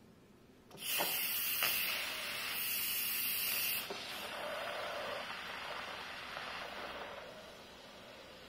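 Instant Pot pressure cooker venting steam through its release valve in a quick release while the soup inside is still under pressure. A loud hiss starts suddenly about a second in, eases after about three seconds and fades toward the end.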